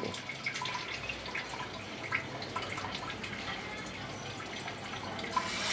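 Faint, scattered small pops and wet clicks: hot oil ticking in a frying pan while a hand works thick pakora batter in a bowl.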